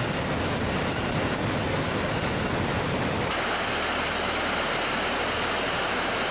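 Steady rushing jet aircraft noise, an even loud hiss, shifting in tone about three seconds in.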